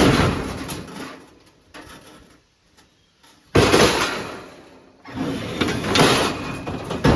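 Scrap metal piping being handled and loaded, scraping and clattering in three loud bursts. The middle burst starts suddenly about three and a half seconds in and dies away.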